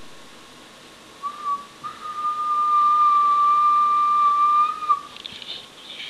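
A person whistling one steady, held note: a short blip about a second in, then the same pitch held for about three seconds and stopping about five seconds in. It is the steady-pitch whistle that a whistle-activated light switch listens for. A few short scratchy noises follow near the end.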